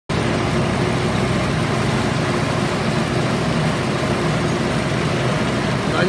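Engine of a concrete mixer with lift running steadily at an unchanging speed.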